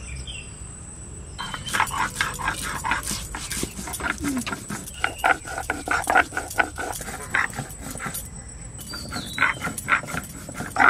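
Coriander seeds being crushed on a sil-nora grinding stone with a stone roller: quick rhythmic scraping, crunching strokes that start about a second and a half in, pause briefly near the end, then start again.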